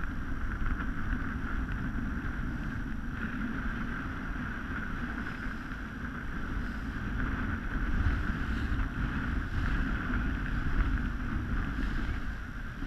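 Small powerboat under way: its motor running steadily, with wind buffeting the microphone and water rushing past the hull.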